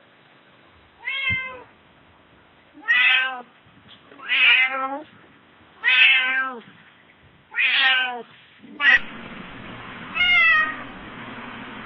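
Domestic cat meowing: five drawn-out meows about a second and a half apart, then a short sharp call and one more meow over a steady hiss near the end.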